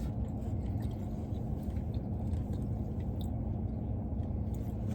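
Someone chewing a bite of taco, with faint scattered wet mouth clicks over a steady low hum.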